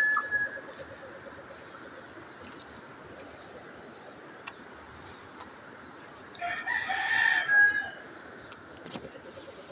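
A rooster crowing: the tail of one crow right at the start and one full crow, about a second and a half long, about two-thirds of the way through. Insects chirp in a fast, even pulse underneath, fading after the first few seconds.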